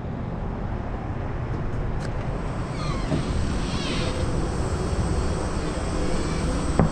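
Steady low rumble of a vehicle driving, heard from inside the cabin.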